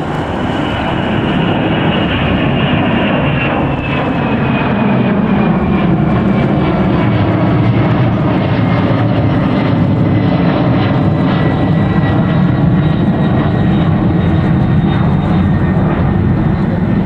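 US Air Force C-32A (Boeing 757-200) climbing out after takeoff, its twin Pratt & Whitney PW2040 turbofans at climb power. Loud, steady jet engine noise with a high whine that slowly falls in pitch as the aircraft passes.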